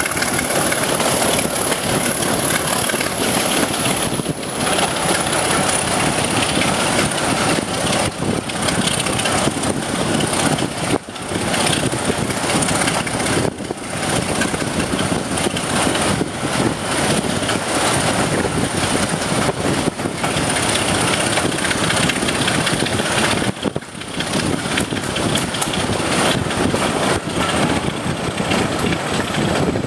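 Class 26 diesel-electric locomotive's Sulzer six-cylinder engine working ahead of a moving train, mixed with steady wheel-on-rail running noise and wind rushing past an open carriage window. A thin, steady high whistle runs above it and drifts slightly lower.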